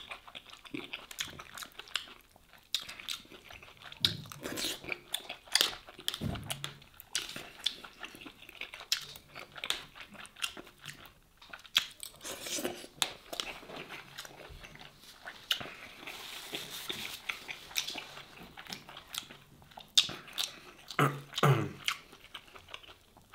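Close-miked chewing of a forkful of döner shawarma, with many short sharp clicks from the mouth and teeth and a couple of brief hums.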